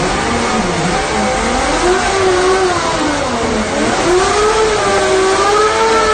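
Arctic Cat Thundercat snowmobile engine being revved, its pitch rising and falling in slow swells several times.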